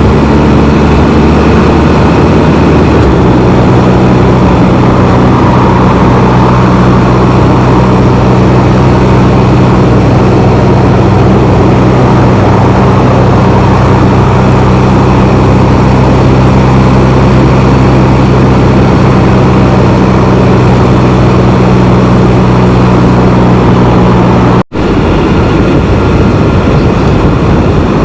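Can-Am Spyder three-wheeled motorbike cruising at a steady pace: an even engine note under loud wind and road rush on the microphone. Near the end the sound cuts out for an instant, and after that the wind rush carries on without the engine note.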